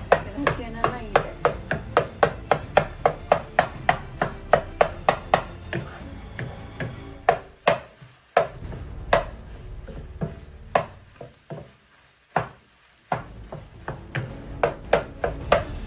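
Kitchen knife chopping food on a cutting board in quick, even strokes, about three a second. The chopping slows and breaks off for a couple of seconds past the middle, then picks up again near the end, over background music.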